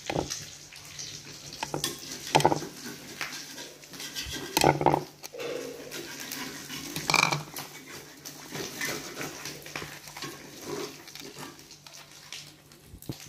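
A spoon scraping and knocking in a plastic bowl of chili sauce, in an irregular clatter with a few louder knocks.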